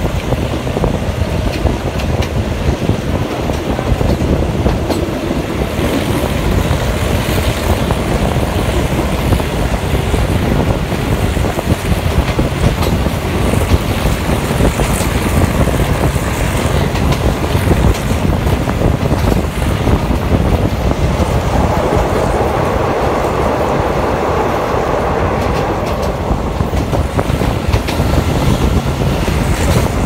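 Passenger train running along the track, heard from an open carriage window: a steady rumble of wheels on rails.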